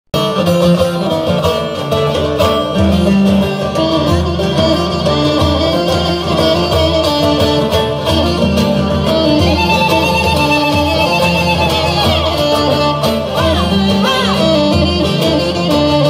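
Kurdish folk music from a band of long-necked saz, guitar and frame drum, the plucked strings to the fore over a steady low beat. A held, wavering melody line comes in about halfway through.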